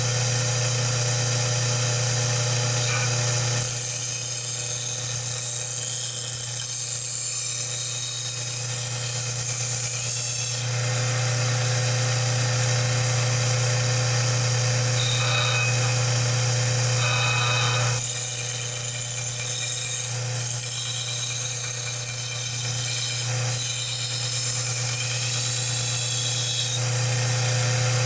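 Kalamazoo 1SM belt sander running with a steady motor hum while a kitchen knife is ground freehand against the abrasive belt. The grinding sound shifts in two long stretches as the blade is worked on the belt.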